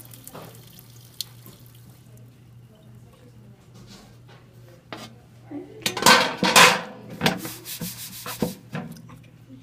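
Water running from a sink tap stops about two seconds in. Then a metal baking sheet is handled at the sink, with a few loud scraping, splashing noises between about six and nine seconds in.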